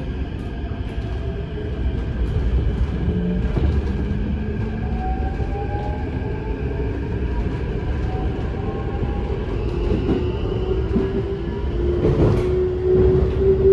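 Keikyu 1000 series train heard from inside the car: the Mitsubishi full-SiC VVVF inverter and traction motors whine in several tones that rise slowly in pitch as the train picks up speed, over a steady rumble of wheels on rail. A few clacks over rail joints come near the end.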